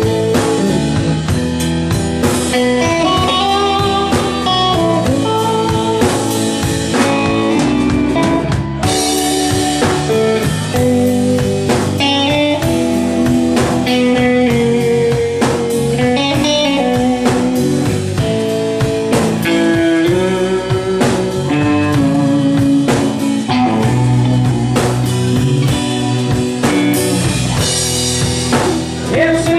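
Blues band playing live: a guitar carrying a stepping melodic line over a drum kit.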